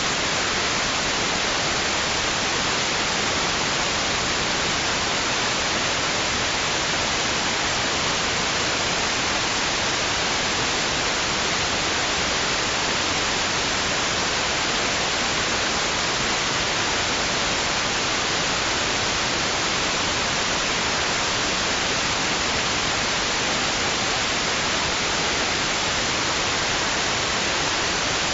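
Steady white noise: an even, unchanging hiss that never rises or falls.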